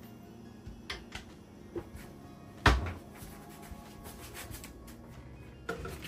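Kitchen clicks and knocks from handling things at the counter: a few light taps, then one sharp, loud knock a little under halfway through, and more clicks near the end.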